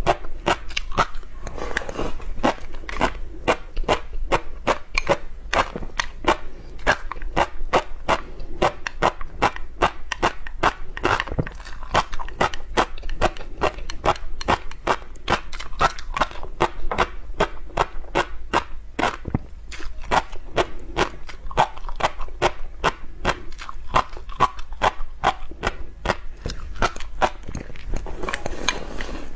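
Close-miked mouth sounds of someone chewing a mouthful of small black fish roe: a dense run of crackling pops, several a second, as the eggs burst between the teeth.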